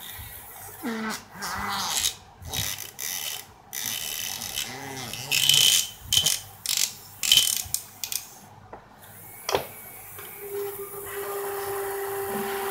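Metal parts of a disassembled motorcycle electric disc horn being handled and fitted together by hand: a run of irregular clicks, scrapes and rattles of the steel housing, diaphragm and bracket. A steady faint hum comes in during the last couple of seconds.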